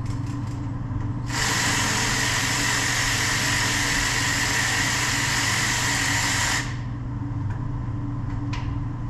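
Electric ratchet spinning for about five seconds, starting a little over a second in and stopping abruptly, as it runs a hub bearing mounting bolt partway in.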